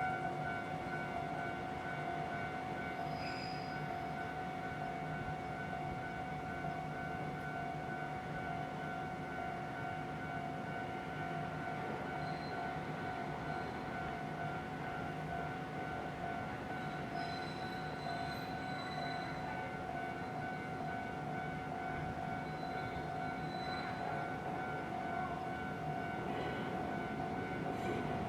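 Japanese level-crossing warning bell ringing steadily, the signal that a train is due. Over the last couple of seconds the noise of an approaching train builds up.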